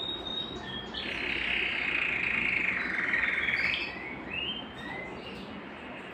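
Belgian canary singing: a held high note, then a loud, fast rolling trill about a second in, followed by short rising notes and another held note near the end.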